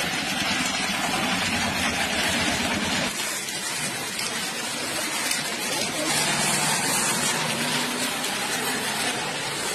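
Vehicles driving through floodwater on a road: water swishing and splashing around the wheels over the hum of engines, with the sound changing about three seconds in as a different vehicle passes.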